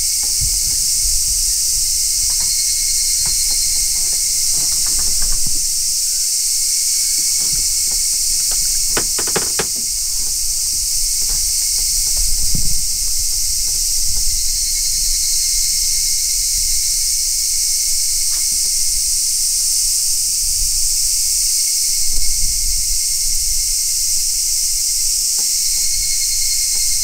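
A loud, steady chorus of cicadas singing in the trees, a high-pitched buzz that swells and fades a little. A few faint clicks come about nine seconds in.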